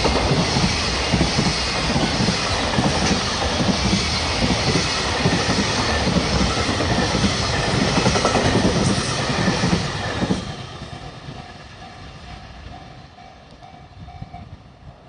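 Freight train wagons rolling past at close range, wheels clacking over the rail joints; about ten seconds in the last of the train goes by and the sound falls away. Near the end a level crossing warning bell's repeated ding can be heard.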